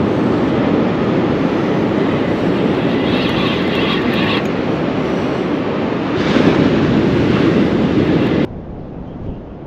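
Wind buffeting the body-worn camera's microphone on an open surf beach: a loud, rough, steady rushing noise that cuts off abruptly near the end.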